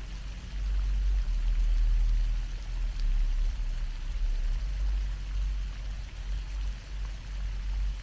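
Pond fountain's spray falling back onto the water in a steady splashing hiss, under an uneven low rumble.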